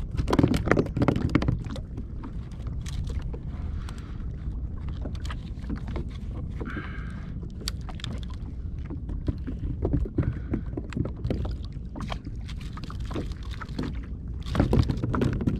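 Water lapping and slapping against a plastic kayak hull over a steady low rush, with scattered knocks and clicks on the boat; the knocks bunch up and get louder about a second in and again near the end.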